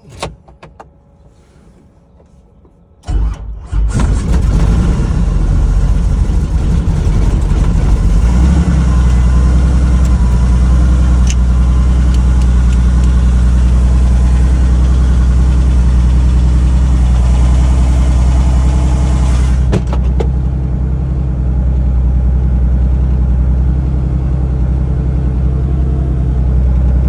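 Robinson R44 Raven II helicopter's fuel-injected six-cylinder Lycoming engine being started: a few switch clicks, then about three seconds in the starter cranks briefly and the engine catches and keeps running steadily. A deep low rumble grows stronger from about eight seconds in.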